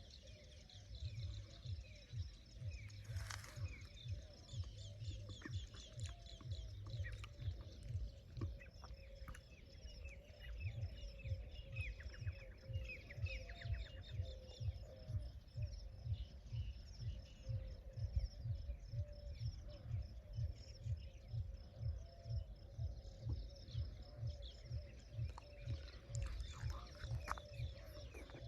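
Many birds chirping and calling in evening outdoor ambience, with a steady run of low thumps underneath.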